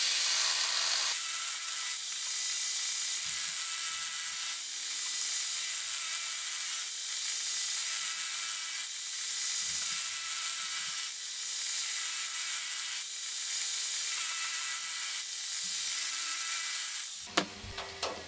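Benchtop table saw running, its blade cutting through a wooden board, the noise swelling and easing every couple of seconds as the board is fed through. About a second before the end the saw noise stops abruptly and a few sharp knocks follow.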